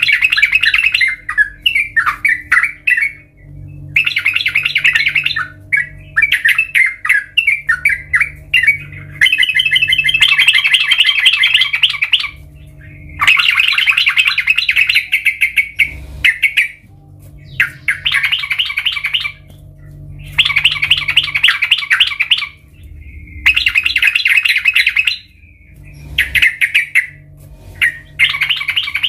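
Yellow-vented bulbul singing: repeated loud bursts of rapid, chattering notes, each lasting one to three seconds with short pauses between them, over a faint steady low hum.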